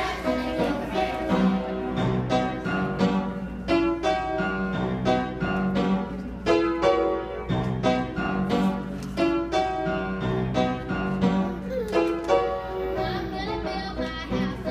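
Instrumental piano music, a steady run of notes without singing.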